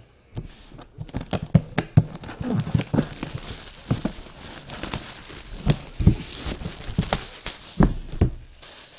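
Clear plastic wrapping crinkling and tearing while a cardboard trading-card box is handled and opened, with many sharp crackles and a few knocks and rubs against the box.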